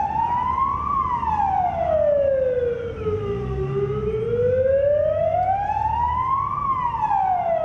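Fire engine siren sounding a slow wail, its pitch sweeping down, up and down again in long glides: the siren marking a minute of silence.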